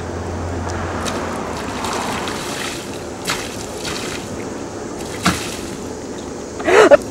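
Water poured from a bucket, trickling and splashing over a plastic kayak hull. Near the end comes a short, loud vocal sound.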